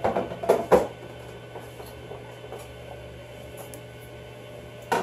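Two or three light knocks in the first second as things are handled while a refrigerator's door shelves are cleaned out, then quiet room tone with a steady low hum.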